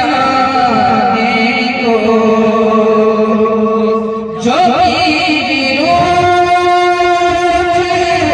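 A man singing a naat into a microphone through a PA, drawing out long held notes with ornamented turns; he breaks off briefly about four seconds in, then takes up another long note.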